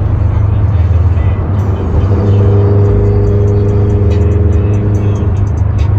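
Car driving, with a loud, steady low road-and-engine rumble. From about two seconds in, a held steady tone sounds over it for about three seconds, then stops.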